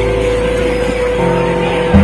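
Background music of sustained, held notes over a steady bass, the chord changing a little past a second in and again near the end.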